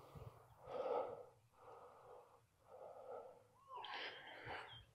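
Faint breathing: four soft puffs of breath about a second apart.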